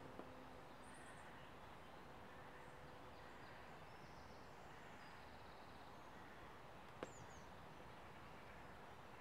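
Near silence: faint outdoor ambience with a few brief, high bird chirps and a single sharp click about seven seconds in.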